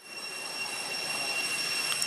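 A steady, high-pitched insect drone made of several held tones over a rushing hiss, fading in at the start.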